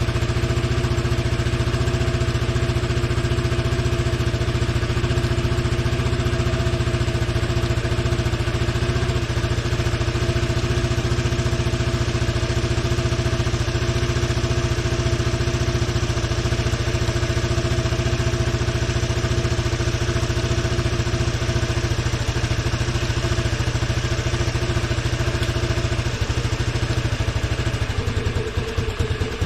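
Honda Helix scooter's single-cylinder engine idling steadily, running again on a newly fitted fuel pump after a no-start. Its note changes near the end.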